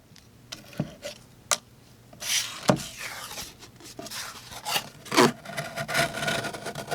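Kizer Justice folding knife's flat-ground N690 blade cutting through material: scraping, rasping strokes with a few sharp clicks, most of them in the second half.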